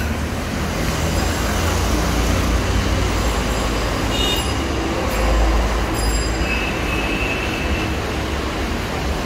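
Steady noise of busy city road traffic, with a heavy low rumble.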